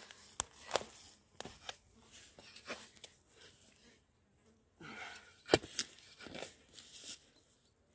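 Irregular crunching, rustling and tearing of dry grass and loose dug soil under boots and a shovel, with a few sharp clicks about half a second in and again near the middle.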